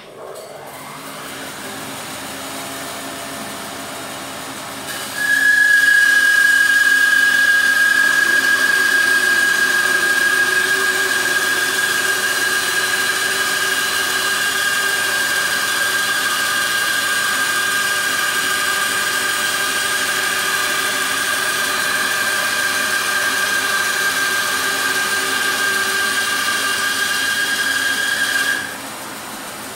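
Laguna bandsaw resawing a wide board on edge: the saw runs for a few seconds, then about five seconds in the blade enters the wood and it turns louder, with a steady high whine that sinks slightly as the cut goes on. Near the end the blade clears the board and the saw drops back to running free.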